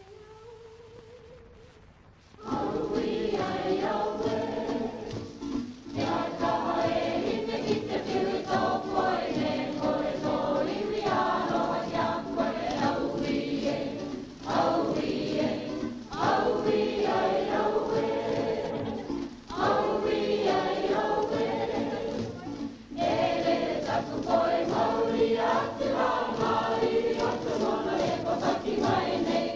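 Background music of choral singing, starting about two seconds in after a faint, quiet opening and going on in long phrases.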